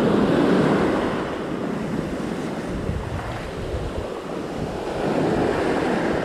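Ocean surf breaking and washing up the sand. It is louder as a wave breaks at the start, eases, and swells again about five seconds in. Wind buffets the microphone.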